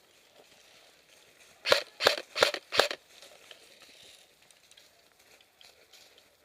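Four quick sharp airsoft gun shots, about three a second, near the microphone, followed by faint rustling.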